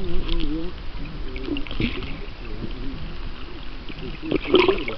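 River current heard underwater: low, wavering gurgles with scattered light ticks, and a louder surge about four and a half seconds in.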